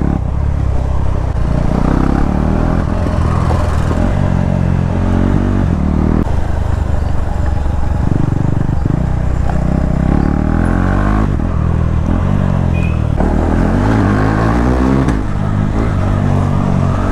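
KTM Duke 390's single-cylinder engine with its stock exhaust removed, running under riding, the revs rising and falling several times.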